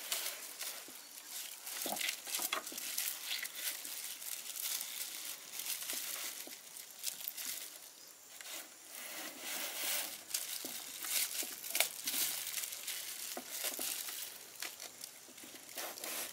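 Rustling and crinkling with many irregular light clicks and scrapes as a large marinated fish is handled and clamped between long split bamboo sticks in a woven bamboo basket.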